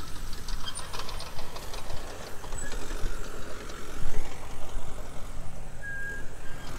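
Diesel engine of a CAT crawler dozer running steadily with a low rumble.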